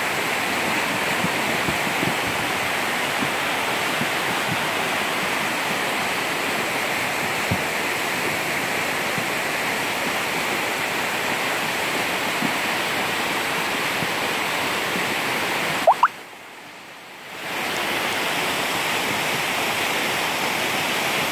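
Steady rushing of a forest stream running high and muddy after rain. About three-quarters through, the sound dips sharply for a second or so, with a short rising chirp at the start of the dip.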